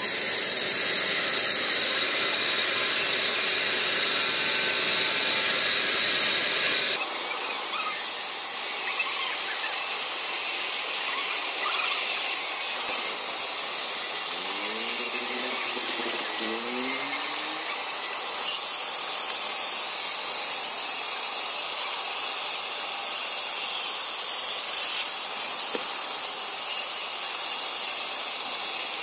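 Sawmill band saw running and cutting lengthwise through a log, a steady hissing rasp of the blade in the wood. The sound changes abruptly about seven seconds in.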